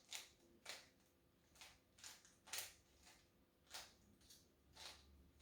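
Rubik's cube faces being twisted by hand: about nine soft, irregular plastic clicks, faint.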